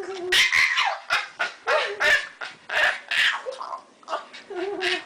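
A dog vocalising in a string of short, loud yips and whiny barks, with rising and falling pitch.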